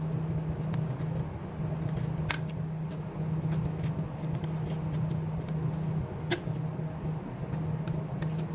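A steady low mechanical hum, with a few light clicks of a knife and fork against a plate as a crepe is cut.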